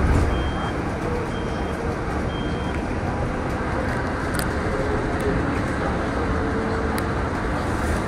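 Steady road traffic noise. A short high beep repeats about once a second for the first three seconds.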